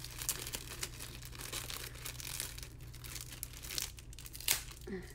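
Clear plastic cellophane sleeve crinkling and crackling as fingers pull it open and handle it, in irregular crackles with one sharper crackle about four and a half seconds in.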